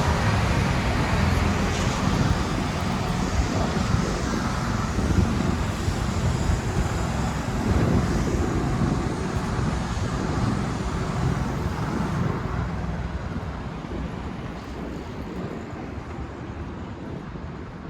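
Road traffic on a city street, a steady rumble and hiss of passing vehicles that grows quieter over the last few seconds.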